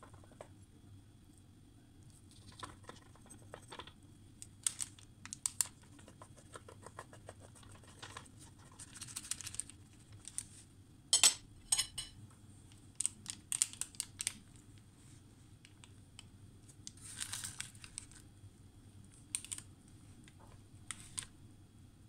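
A knife cutting a baked apple cake on parchment paper and a slice being lifted out: scattered crinkles of the paper and sharp clicks of the blade against the pan, loudest about eleven seconds in.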